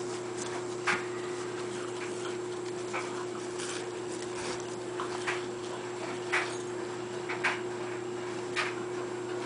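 Beagle panting, with short sharp sounds every second or so as it plays tug.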